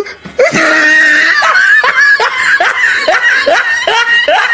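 A person laughing hard in a rapid string of short bursts, each falling in pitch, about two or three a second.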